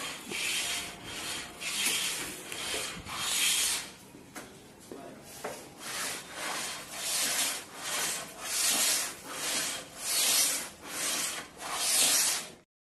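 Hand sanding on wood: rhythmic back-and-forth rasping strokes, a little over one a second, which cut off suddenly near the end.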